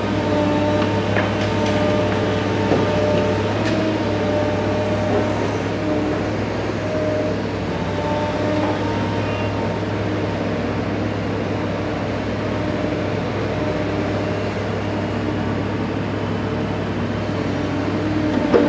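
Caterpillar M316D wheeled excavator's diesel engine running steadily under working load, with a whining tone that comes and goes as the hydraulics move the boom and bucket. A few knocks and clatter in the first few seconds as the bucket's load drops into the tipper truck's body.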